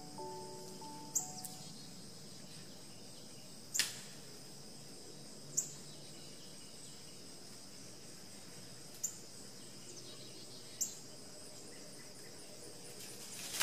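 Steady high-pitched insect chorus, with half a dozen sharp clicks or snaps at irregular intervals, the strongest about four seconds in.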